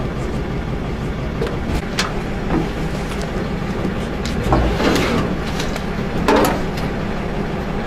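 Steady low vehicle rumble with a few sharp knocks and rattles.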